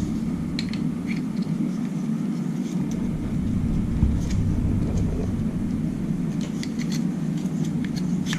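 Light clicks and taps of a GoPro mic adapter and its USB-C cable being handled and plugged in, over a steady low background rumble.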